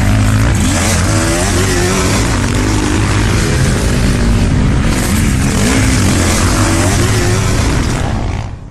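Motocross bike engines revving, several pitches rising and falling over one another above a steady low drone, fading out near the end.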